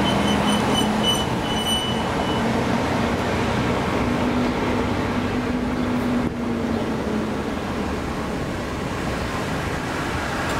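Steady road traffic noise at an intersection, with cars passing and idling close by and a low steady engine hum. A broken high-pitched squeal sounds during the first two seconds.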